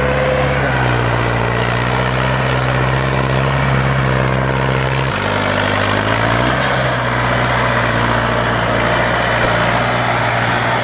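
Mahindra 575 DI tractor's four-cylinder diesel engine running steadily under load while pulling a heavily loaded sugarcane trolley. The engine note changes abruptly about five seconds in.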